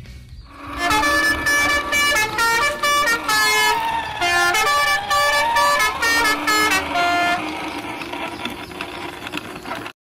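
Electronic toy-vehicle horn tones playing a quick tune of short stepped notes, with a siren-like wail that falls and rises again twice in the middle. The tones stop about seven seconds in, leaving a fainter scraping noise.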